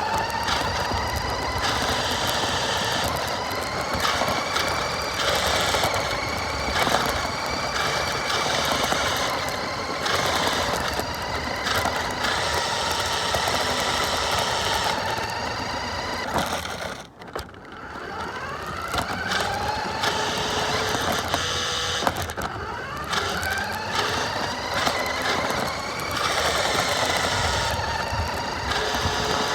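Radio-controlled car's motor whining as it drives, its pitch rising and falling again and again as it speeds up and slows down. About halfway through it cuts out briefly, then winds back up.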